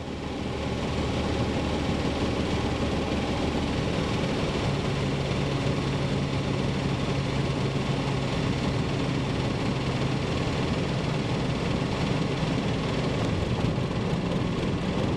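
Van's RV-12's Rotax four-cylinder engine running steadily at low power through the landing rollout, heard inside the cockpit as an even drone. A low hum in it steadies about five seconds in.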